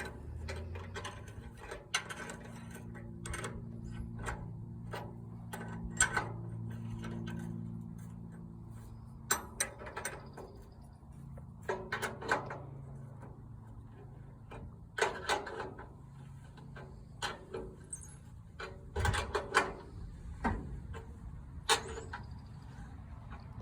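Scattered sharp metal clicks and clanks of hand tools working on a circular sawmill's frame and track during levelling and shimming, with a low steady hum under the first several seconds.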